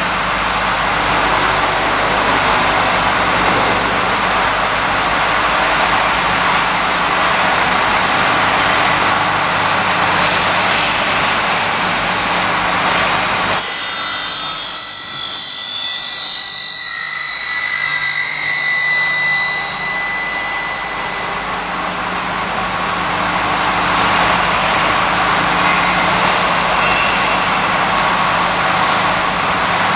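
KT-313F curtain wall end milling machine running, a loud steady machining noise. Midway, for about six seconds, the heavy noise drops away and high whining tones are left, then the full noise comes back.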